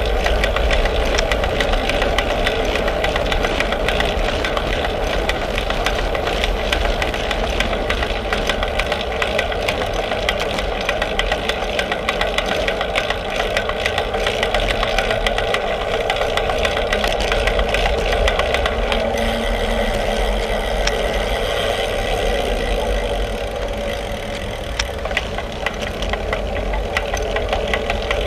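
A steady, loud mechanical drone: a deep rumble and a hum, with a dense crackle of fine ticks over it, easing slightly for a few seconds near the end.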